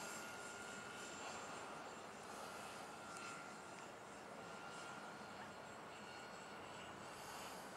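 Motors and propellers of a radio-controlled B-26 model airplane flying overhead: a faint, steady high whine.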